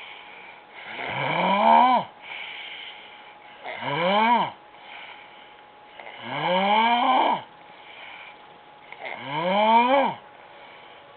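A woman snoring loudly in her sleep: four long snores about two and a half seconds apart, each rising in pitch, with softer breaths between them.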